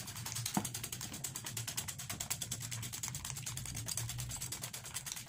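Wire balloon whisk beating eggs and sugar by hand in a ceramic bowl, its wires clicking against the bowl in a rapid, even rhythm. The mixture is being whisked until the sugar dissolves and the eggs turn pale and frothy.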